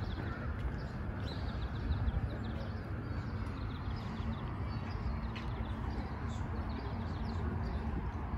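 Birds chirping, many short calls over a steady low rumble.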